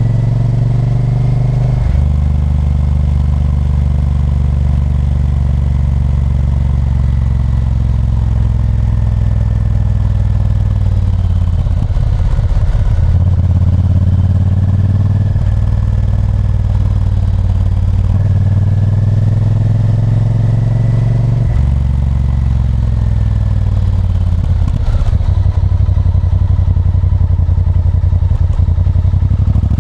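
Honda Varadero 1000's 996 cc 90° V-twin engine running under way on a ride, its note slowly rising and falling with the throttle and stepping abruptly several times.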